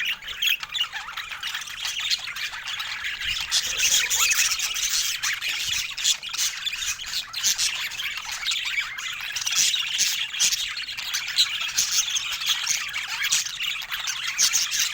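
Budgerigar chatter: a continuous stream of chirps, squawks and warbling.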